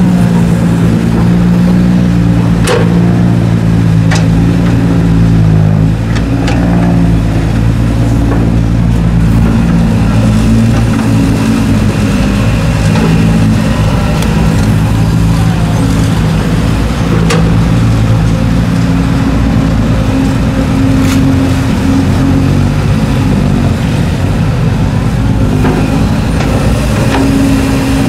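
Kobelco hydraulic excavator's diesel engine running under digging load, its note shifting up and down as the boom, bucket and swing work. A few sharp knocks come through over the engine.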